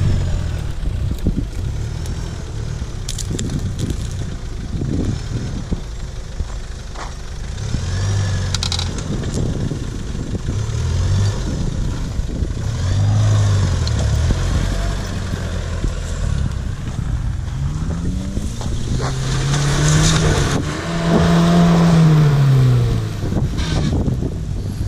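Off-road 4x4 engines revving under load on loose dirt: a Mitsubishi L200 pickup pushing through brush, then a Ford Maverick climbing a dirt mound, with crackling and crunching from branches, dirt and gravel under the tyres. Near the end one engine revs up hard and falls back again.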